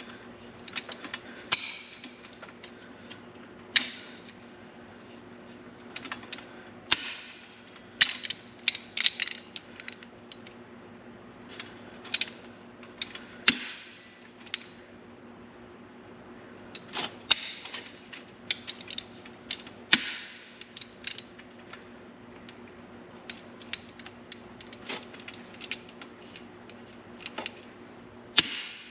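Pliers crunching and cracking a brittle plastic cable-end connector, with irregular sharp snaps and clicks of plastic breaking and metal jaws clicking. A steady low hum runs underneath.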